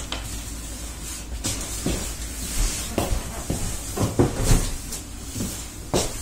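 Cardboard boxes being handled and set down, with footsteps on a wooden floor: a series of separate knocks and thuds, the loudest a little after four seconds in.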